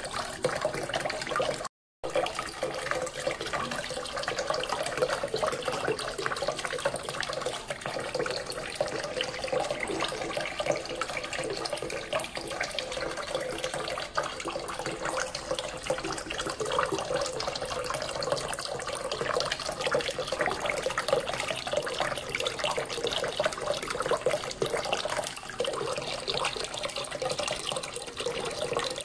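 A small submersible fountain pump sends a column of water up that splashes back into a basin of water: a steady splash and trickle, broken by a brief silent gap about two seconds in.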